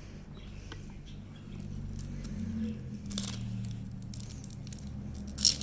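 Trading cards and their packaging being handled: soft rustles and light clicks, with a brief louder rustle near the end.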